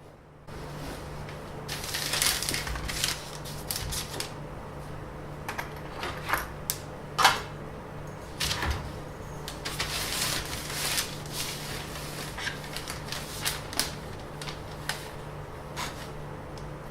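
Irregular clicks, taps and short rustles of small objects being handled, over a steady low hum that comes in about half a second in.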